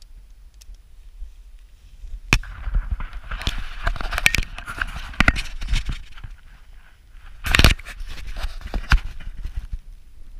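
Handling noise from a hand-held action camera being turned around: scraping, rubbing and irregular clicks and knocks on the casing, with a loud knock about 7.5 seconds in, after a quiet start.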